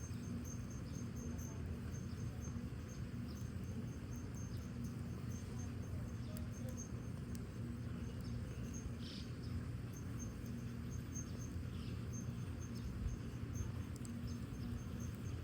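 Crickets chirping steadily, a high pulsing trill about three times a second, over a low steady rumble, with a few faint crackles from the wood fire.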